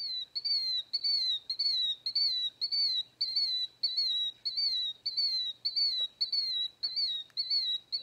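Recorded killdeer calls played through a bird-song sound book's small speaker: a fast, even series of really high, down-slurred notes, about two a second.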